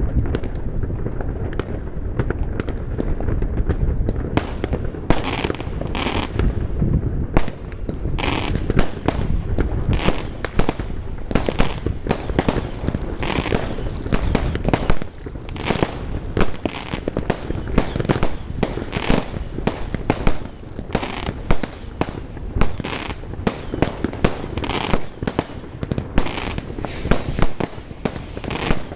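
Fireworks and firecrackers going off in a dense, continuous barrage of sharp bangs over a steady low rumble. The bangs come thicker and sharper from about five seconds in.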